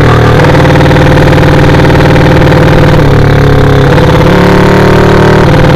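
Drag-race motorcycle engine running loud under way, its note stepping down and back up a few times as the revs change.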